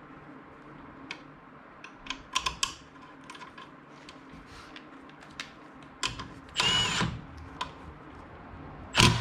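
Cordless power drill/driver run in one short burst of about half a second, with a steady whine. Light clicks and taps of metal parts being handled come before it, and a single loud knock comes near the end.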